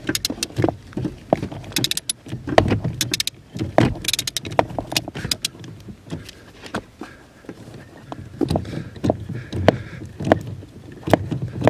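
A ratchet with a 12 mm socket unscrewing the bolt of a steering shaft's lower universal joint: irregular clicks and knocks of metal tool on metal, with handling bumps.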